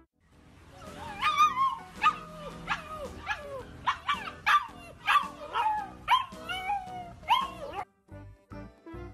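Alaskan Malamute puppy giving a run of about a dozen short yelping howls, each sliding down in pitch, about one and a half a second. The calls stop abruptly about eight seconds in.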